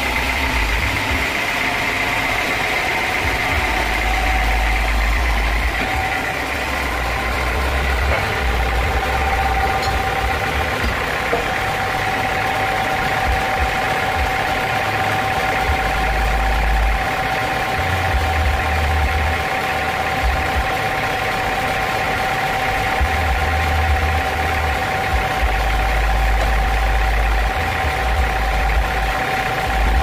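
Horizontal band sawmill running with a steady drone and high whine; early on its blade is sawing through a teak log.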